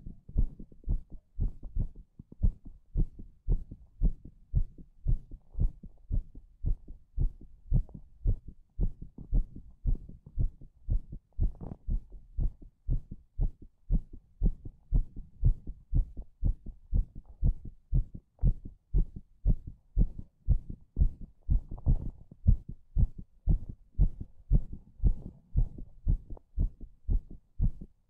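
A strong heartbeat beating steadily: an even, unbroken run of low thumps.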